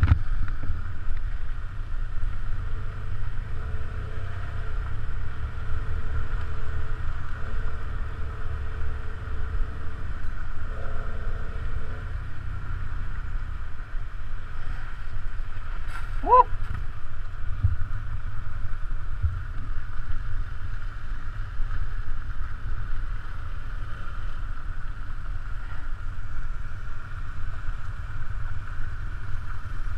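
Motorcycle riding slowly on a gravel track: a steady low engine rumble with wind on the microphone. About halfway through there is one short rising squeak.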